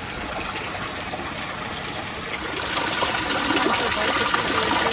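Running creek water, a steady rushing that grows louder about halfway through.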